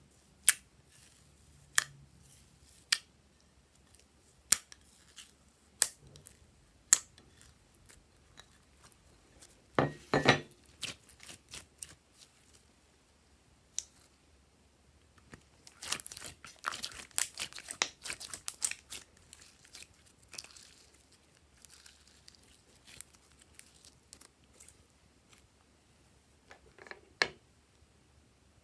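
Glossy slime being poked, pressed and stretched by hand, giving sharp sticky clicks and pops. At first there is a single click every second or so, then short bursts of quick crackling.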